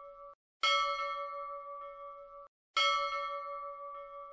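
A bell-like chime effect struck twice, about two seconds apart. Each ring fades slowly and is cut off abruptly.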